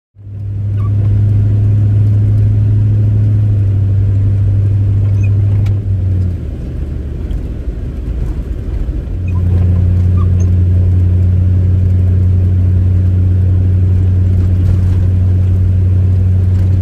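Truck engine droning at a steady speed. It eases off about six seconds in and comes back up about three seconds later.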